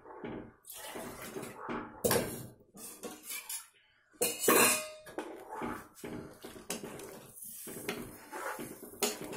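Steel ladle stirring buttermilk curry in a metal kadhai, scraping and clinking against the pan, with louder knocks about two and four seconds in, the second one ringing briefly.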